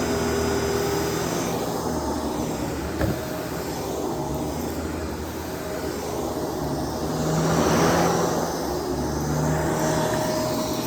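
Shark DuoClean PowerFins vacuum cleaner running with a steady motor drone that swells about eight seconds in, with a short knock about three seconds in.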